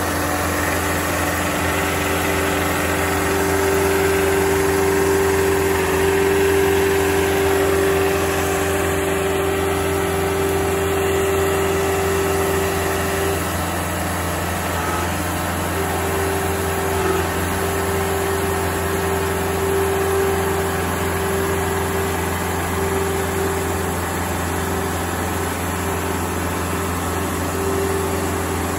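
Engine of a remote-controlled House-Tug tracked mobile-home mover running steadily, with a steady whine over it that drops out for a couple of seconds midway.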